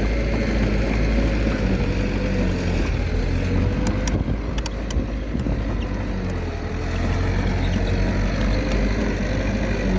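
Diesel engine of a small Komatsu D21A bulldozer running steadily, its pitch wavering slightly under load, with a few sharp clicks about four to five seconds in.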